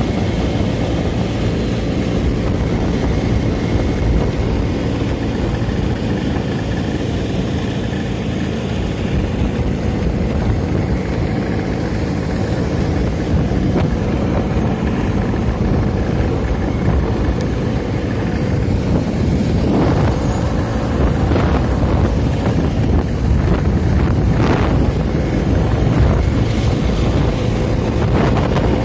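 Vintage Vespa scooter's two-stroke single-cylinder engine running steadily under way, with wind buffeting the microphone. A few brief surges stand out in the later part.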